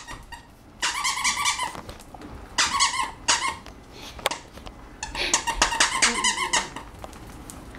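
Squeaky dog toy squeaked in three bursts of quick repeated squeaks, about a second in, near three seconds and around five to six and a half seconds.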